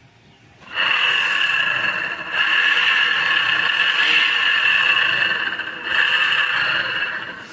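1100-watt electric drive motor of a City Life e-rickshaw running with a loud, high whine and grinding noise, easing off briefly twice. The noise comes from a worn shaft and bearings, which the mechanic says will have to be changed.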